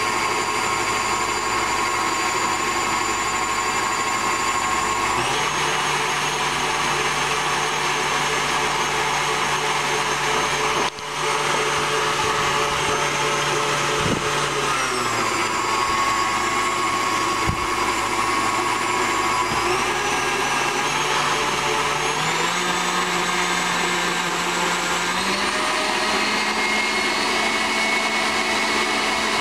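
KitchenAid tilt-head stand mixer running steadily while beating pudding. Its motor whine steps up in pitch about five seconds in and drops back down around halfway. Near the end it steps up three more times as the speed is gradually turned up.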